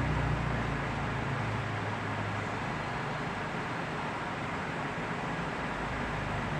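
Steady rushing background noise, with a low hum in the first couple of seconds that then fades.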